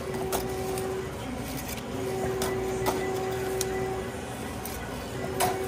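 A steady mechanical hum that cuts in and out every second or two, with a few sharp clicks and knocks, the loudest near the end.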